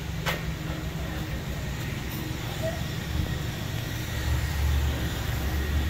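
Steady low mechanical rumble and hiss of car wash bay equipment, with a single sharp click just after the start. The low hum grows louder about four seconds in.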